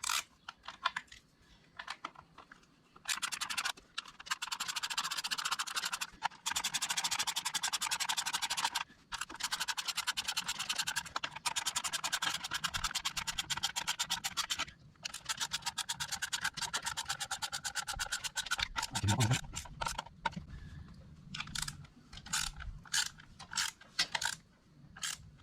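A socket ratchet clicking fast in long runs of strokes with short pauses between them, then a few separate clicks near the end, as bolts on the motorbike are tightened.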